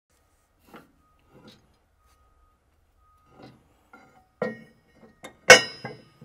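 Metal clinks and knocks of hand tools and hardware against a forage harvester's steel shear bar during shear bar installation. About eight scattered strikes grow louder toward the end, the loudest about five and a half seconds in, with a brief ring.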